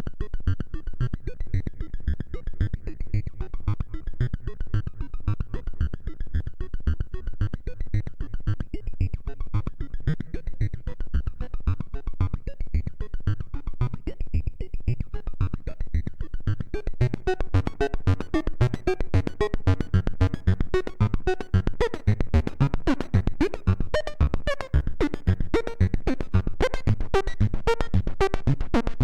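Moog Matriarch analog synthesizer playing a fast, steady sequenced pattern of short bass notes. About two-thirds of the way in, the sound brightens as higher notes with sharp, clicky attacks join the pattern.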